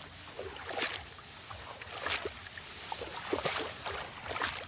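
Irregular splashing and sloshing of water, with rustling, a few strokes a second.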